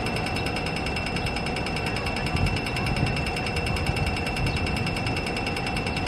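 Rapid, perfectly even electronic ticking of a pedestrian crossing signal, the fast tick that marks the walk phase, over the low rumble of city traffic.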